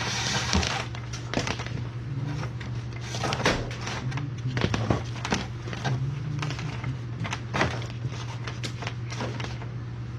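Irregular clicks, knocks and rustles of parts and wiring being handled during an install, over a steady low hum.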